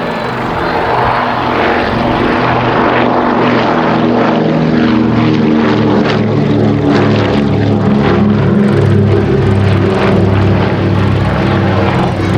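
Consolidated PBY Catalina flying boat's twin Pratt & Whitney R-1830 radial piston engines and propellers droning in flight, growing louder over the first couple of seconds and then holding steady.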